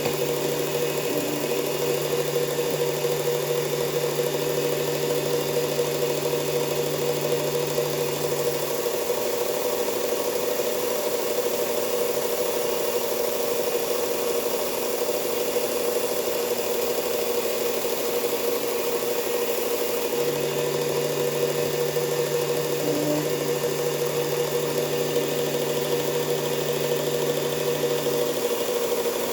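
Electric belt sander motor running steadily while a Ka-Bar 1266 knife edge is sharpened on the belt. A lower hum comes in for the first third and again for a stretch from about two-thirds of the way in.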